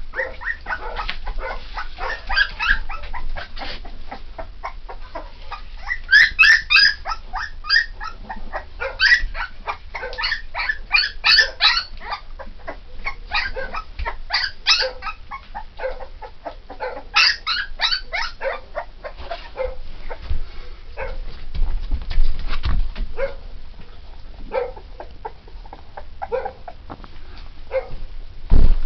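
Puppies crying: many short, high-pitched squeaks and whimpers in quick runs, thinning out in the second half. A few dull bumps near the end.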